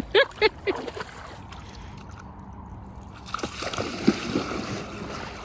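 River water splashing and sloshing, strongest from about three seconds in. A few short voice sounds come just at the start.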